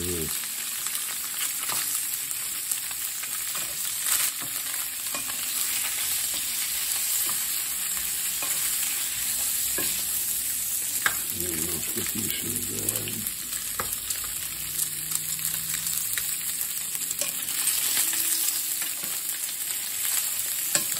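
Boiled pelmeni sizzling as they fry in butter and vegetable oil in a skillet, while a wooden spatula stirs and scrapes them around the pan, with occasional sharp taps of the spatula against it.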